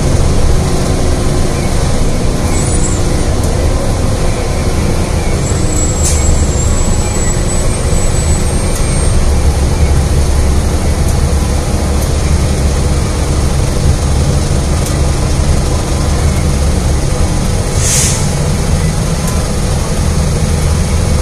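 Cabin sound of a 2018 Gillig Low Floor 29 ft CNG transit bus running: a steady low engine and road rumble. A faint high whistle comes in briefly about a third of the way through, and a short hiss of air comes near the end.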